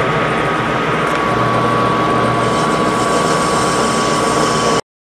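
Metal lathe running with a parting tool cutting into bronze rod stock: a steady machine noise with a low hum and a steady high whine from the cut. It stops abruptly shortly before the end.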